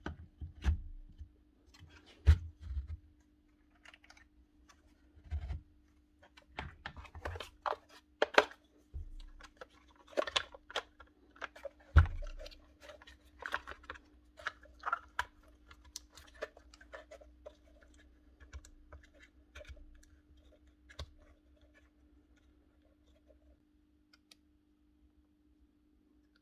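Hands wiring and fitting parts into the open housing of a Bosch GSH4 hammer. Irregular clicks, taps and knocks of plastic and metal parts and leads die away after about twenty seconds, over a faint steady hum.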